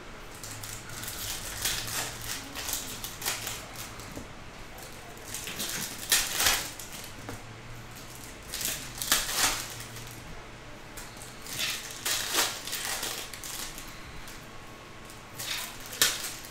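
Foil trading-card pack wrappers crinkling and tearing open, with cards rustling as they are handled. The crinkles come in short bursts every couple of seconds.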